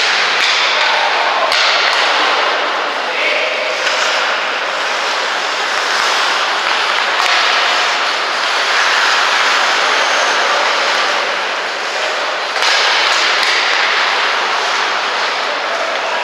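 Ice hockey play on the rink: a steady scraping hiss of skates on the ice, with a few sharp knocks of sticks and puck, one about a second and a half in and another about twelve and a half seconds in.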